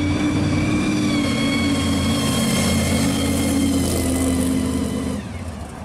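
Supercharged V8 of a second-generation Chevrolet Camaro pro street car running past at low speed: a deep engine note with a steady high blower whine over it. Near the end the whine drops in pitch and the sound falls away as the car moves off.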